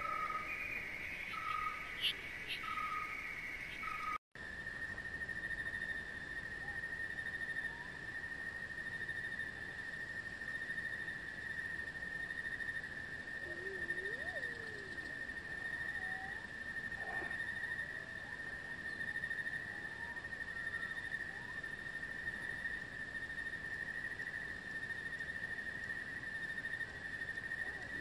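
Insects trilling: a steady high trill that cuts out for an instant about four seconds in, then carries on unbroken. Before the cut, a pulsing chirp repeats a little faster than once a second. Faint short calls come and go underneath.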